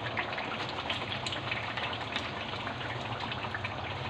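A large pot of oily tomato-and-yogurt curry sizzling and bubbling over a flame as yogurt is poured in, with a dense run of small crackles and spits.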